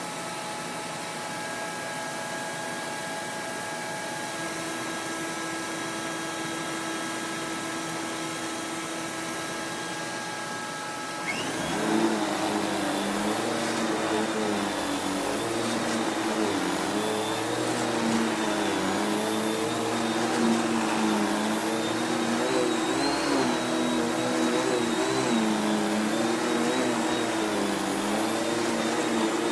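Hoover Dimension 1000 (S3277-040) canister vacuum running with a steady whine. About eleven seconds in it gets louder and its pitch starts wavering up and down as it is worked back and forth over carpet.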